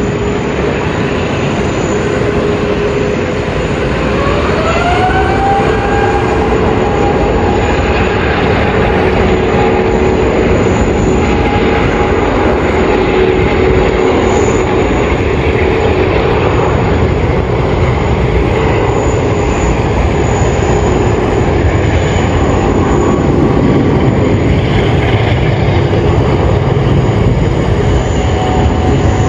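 Airbus A350-900's Rolls-Royce Trent XWB turbofan engines at takeoff thrust: a loud steady jet rush with a whine that rises about four seconds in, then holds.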